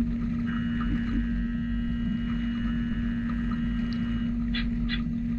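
Brother Speedio U500Xd2-5AX machining center milling aluminium with a 16 mm three-flute end mill: a steady, even cutting hum over the hiss of flood coolant. Two brief higher-pitched squeaks come near the end.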